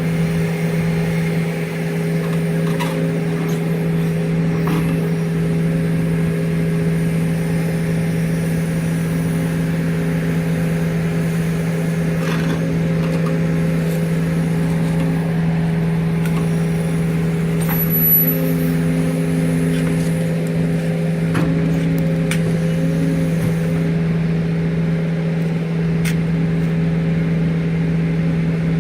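A large engine running steadily at a constant speed, an even hum that does not change, with a few faint knocks over it.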